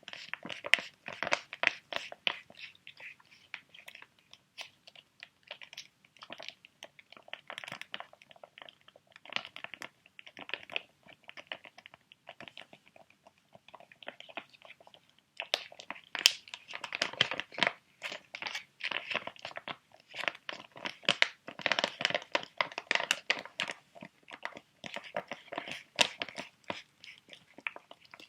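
Close-up crinkling and crackling of plastic-foil sheet mask pouches being handled: a dense, irregular stream of small crackles, softer for a few seconds in the middle and busier again in the second half.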